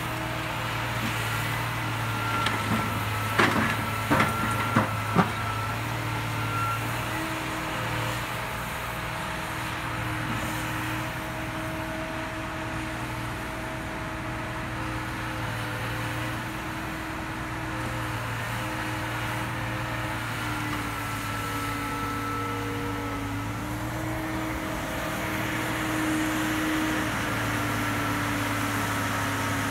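John Deere 892D LC log processor with a Waratah head working: diesel engine running steadily under a hydraulic whine that steps up and down in pitch as the boom and head move. A quick run of four or five sharp knocks about three to five seconds in.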